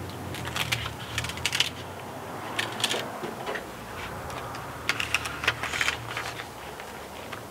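Self-adhered window flashing tape crackling as its backing is peeled and the tape is pressed onto the window edge: irregular clusters of quick clicks, like typing, in several spells.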